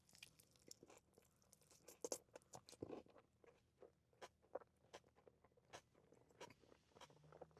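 A person chewing a mouthful of food close to the microphone: quiet, irregular crunches and wet mouth clicks.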